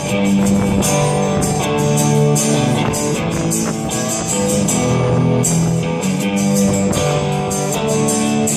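Guitar introduction to a song: strummed guitar chords in a steady rhythm, before the vocals come in.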